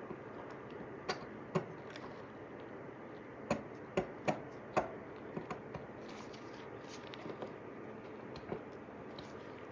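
Sharp little metal clicks and taps, about a dozen irregularly spaced, as a stainless steel threaded rod is fed and worked through the drilled hole of a belt buckle; the loudest come in a cluster around the middle.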